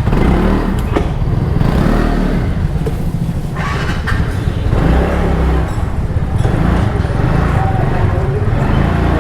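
A TVS NTORQ 125 scooter's single-cylinder engine running close by just after being started, its rumble swelling a few times. The owner has brought the scooter in for lost pickup and a ticking noise.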